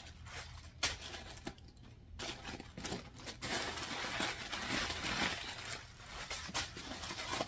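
White tissue paper crinkling and rustling as it is pulled out of a new leather tote and handled, with scattered small crackles; the rustling is light at first and fuller from about halfway.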